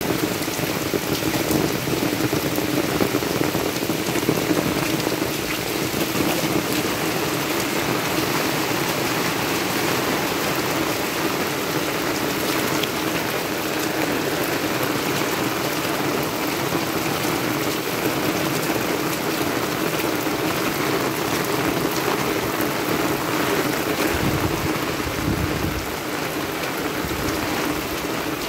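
Heavy rain falling steadily on a wet dirt road and roadside vegetation. A short low rumble comes in near the end.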